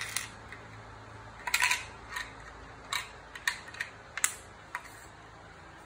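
Coins and LEGO plastic being handled: a run of sharp clicks and clinks, a quick cluster about a second and a half in, then single clicks every half second or so until about five seconds in.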